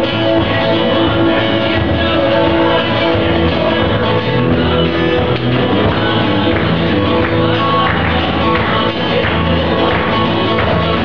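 Live worship music from a church band: guitars strummed and picked over drums, with singing on top.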